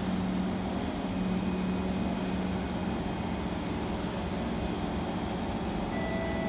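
Steady rushing hum inside a standing Kawasaki C151 metro train car, the sound of its equipment and ventilation running while it waits at an underground platform. A low hum under the noise fades out about two and a half seconds in.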